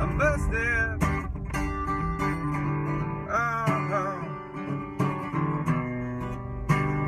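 Acoustic guitar being strummed and picked, with two short sung phrases with vibrato, one at the start and one about halfway through.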